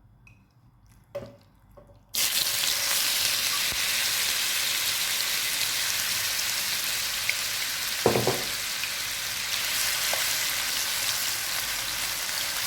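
Marinated chicken pieces frying in hot oil in a pan: after a near-quiet start, a loud sizzle begins suddenly about two seconds in as the chicken goes into the oil, then holds steady, with a brief knock of a utensil a little past the middle.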